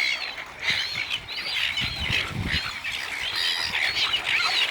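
A flock of silver gulls squawking, with many short calls overlapping continuously as they crowd in for food.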